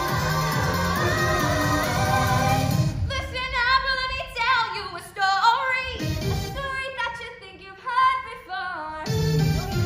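Young women singing a pop stage-musical number into microphones with an accompaniment: for about three seconds the group sings together over a full, bass-heavy backing, then a single voice sings alone with vibrato, with low bass notes coming back a couple of times.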